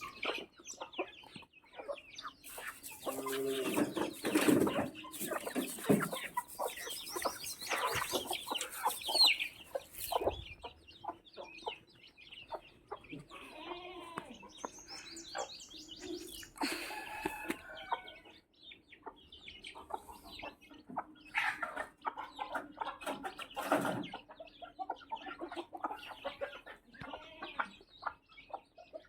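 Chickens clucking in a run of short, irregular calls, with louder squawks now and then. A steady hiss runs beneath the calls for several seconds early on.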